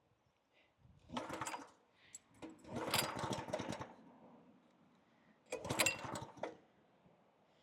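Three pulls on the recoil starter of a pressure washer's Honda GX engine, set on choke for a cold start. Each pull is a short burst of rapid cranking, the second the longest, and the engine does not catch.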